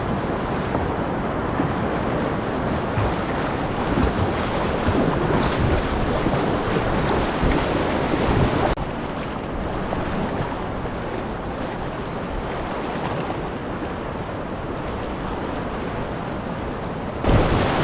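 Rushing whitewater of a low-water river rapid around a kayak, with splashing and wind buffeting the microphone. The rush drops a step about nine seconds in and jumps back up near the end.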